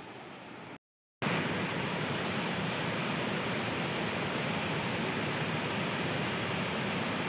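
Waterfall rushing as a steady, even roar of water. About a second in, the sound drops out briefly at an edit cut and returns louder.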